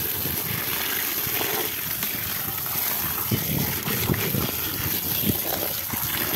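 A stream of water splashing steadily onto a plastic crate full of freshly caught fish, washing them. A few dull knocks come through about three, four and five seconds in.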